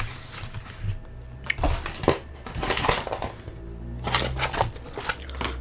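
Paper takeout bag and food wrappers rustling and crinkling in irregular bursts as leftover food is packed into the bag.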